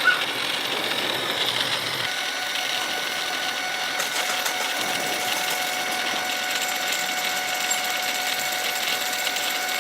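Steady workshop machinery running, a continuous mechanical noise with a few steady whining tones through it.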